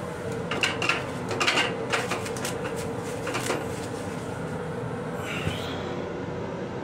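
Toilet paper pulled off the roll in a wall dispenser and torn: a run of quick rustles and rattles over the first few seconds, then one short rustle near the end. Underneath, the steady hum of the M7 railcar.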